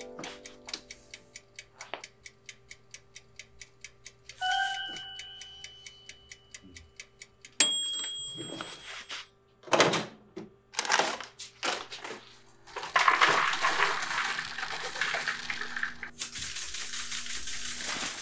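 A string of sound effects over a low steady hum: rapid even ticking for about four seconds, then a chime, then a single bright bell-like ding. A run of short noisy whooshes follows, ending in a rough, steady rushing noise for the last five seconds.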